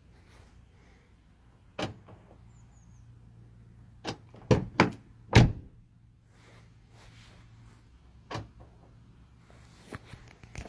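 Car door handle and lock mechanism of a 2016 Nissan Rogue being worked: a sharp click about two seconds in, then a quick run of three loud thunks around the middle, with smaller clicks later on.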